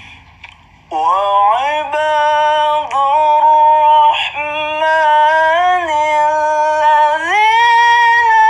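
A solo voice chanting in the drawn-out, ornamented melodic style of tilawah (Quran recitation), with long held notes and slides between pitches, starting about a second in. The recording is dry, with no echo effect added yet.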